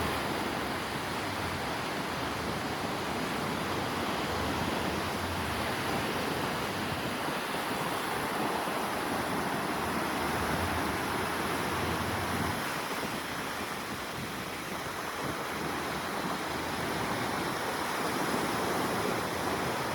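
Sea waves washing onto the beach: a steady wash of surf that swells and eases gently.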